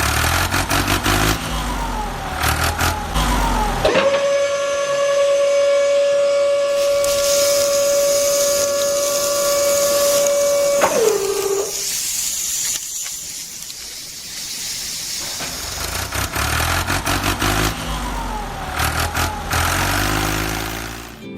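Background music, broken in the middle by a long steady whistle-like tone that drops in pitch and cuts off after about seven seconds, followed by a few seconds of hiss before the music returns.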